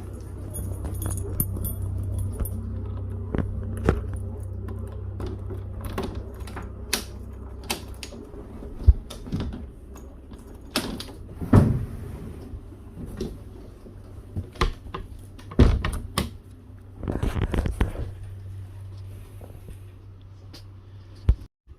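Companionway sliding hatch and bifold door on a motor cruiser being opened: a string of clicks, knocks and rattles over a steady low hum that cuts out near the end.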